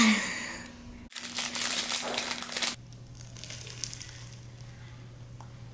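A voice trails off, falling in pitch. About a second in comes a burst of crinkling and crumpling that lasts about a second and a half, then it cuts to quiet with a faint steady low hum.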